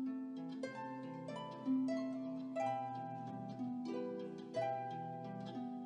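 Background music: a steady run of plucked string notes over sustained low notes.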